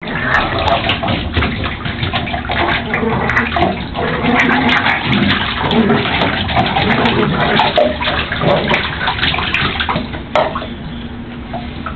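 Pug puppy splashing and scrabbling in shallow bathwater, paws slapping the water and scratching on the tub, with many small clicks and knocks throughout.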